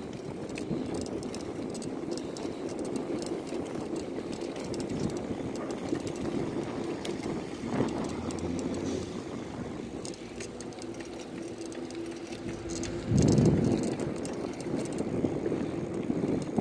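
Wind rushing over the microphone and tyre noise from a bicycle rolling on asphalt, with small rattling clicks from the bike. A louder low rumble about thirteen seconds in.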